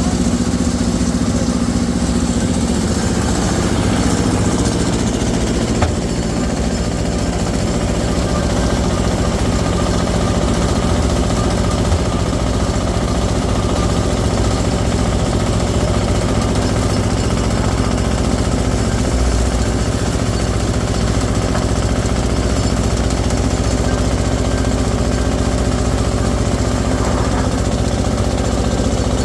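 An engine or motor running steadily at an even speed, with a rattling vibration.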